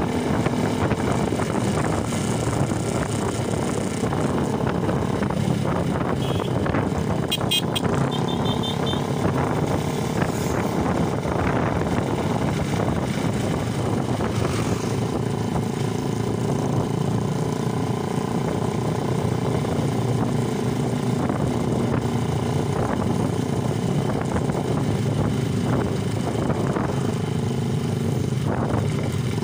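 Motorcycle engines running steadily throughout, with a short run of high beeps about seven to nine seconds in.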